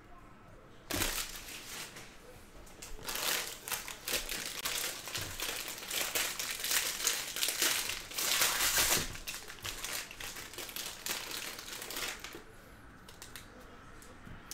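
Foil wrappers of baseball card packs crinkling and rustling as hands tear them open and pull out the cards; it starts about a second in, is busiest in the middle and dies down near the end.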